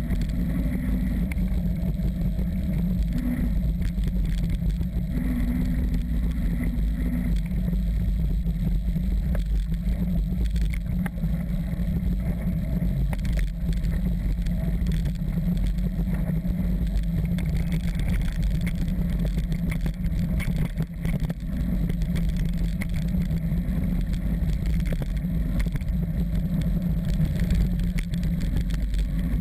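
Steady wind rumble on a mountain biker's action-camera microphone, with the rattle and crunch of the bike's tyres over a rough dirt track and scattered short clicks from the bumps.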